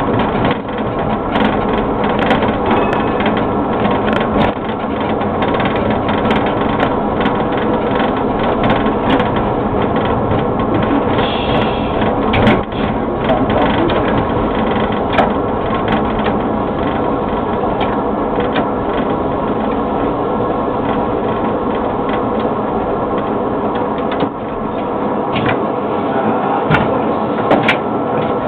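Cab noise of a Variolino tram under way: a steady mechanical hum of the drive with several steady tones over the running noise, and scattered sharp clicks and knocks.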